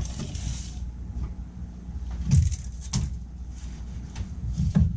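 Handling noises while measuring and marking on a sheet-metal coil cabinet: a short scratchy stroke at the start, then a few light knocks and clicks, over a steady low hum.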